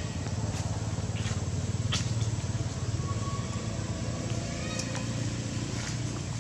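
Low, steady engine rumble of a motor vehicle running close by, with a few sharp clicks and a couple of short, high, falling chirps over it.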